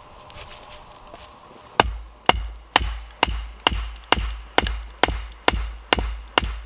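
A wooden baton beats the back of a hatchet head, driving the blade down into an upright log to split it. It makes a steady run of sharp knocks, about two a second, starting about two seconds in, each with a short metallic ring.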